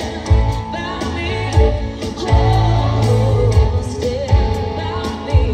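Live pop music over concert speakers: a woman singing into a microphone over a band track with a heavy, regular bass beat.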